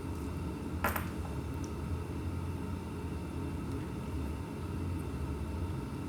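A steady low hum, with a single short click about a second in.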